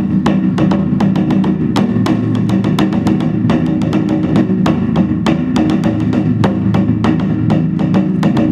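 Korean traditional drumming accompanying a seungmu dance: rapid, sharp drum strokes, several a second, over a steady low ringing tone.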